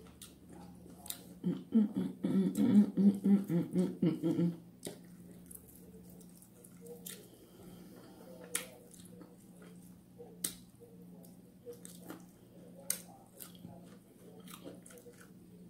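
A woman humming in short pulses with her mouth closed while she chews, followed by wet chewing and sharp mouth clicks and smacks as she eats fried chicken with her hands.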